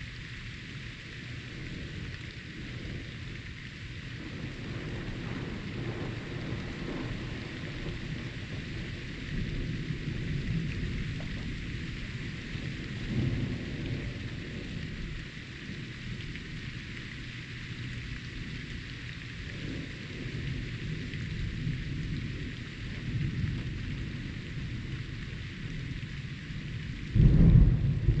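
Steady rain with low thunder rumbling on and off, and a sudden loud clap of thunder near the end.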